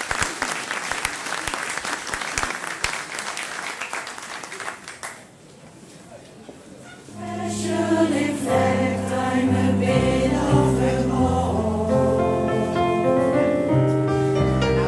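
Audience applauding, dying away after about five seconds; about two seconds later a mixed choir starts singing, several voice parts at once.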